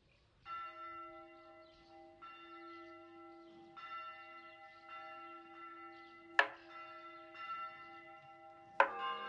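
Church bell ringing, struck about every one and a half seconds, each stroke left to ring on into the next. Two sharper, louder strikes come in the last few seconds. It is the bell announcing the Resurrection at Easter.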